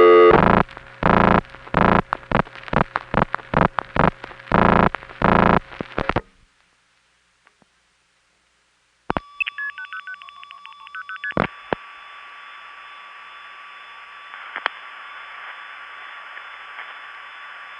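Vintage long-distance telephone call being set up through electromechanical tandem switches. About a dozen loud bursts of signalling tones are heard, then a silent gap. Then come fainter rapid multifrequency tone pulses as the digits are passed on, a couple of switching clicks, and a steady line hiss with a constant tone on the connected circuit.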